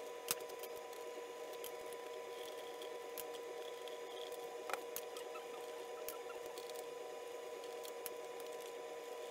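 Faint, scattered clicks and light taps from hand work on the motorcycle's seat-unit panel bolts and fasteners, over a steady faint hum.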